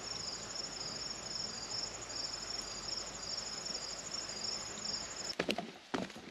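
Crickets chirping in a steady chorus: an even high trill with a second pulsing chirp about twice a second. It cuts off suddenly about five seconds in, and a few footsteps knock on a wooden boardwalk.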